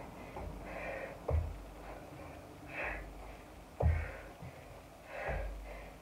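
A woman breathing hard while working out, with about four forceful exhales a second or more apart. Two dull thumps about a second and four seconds in are the loudest sounds.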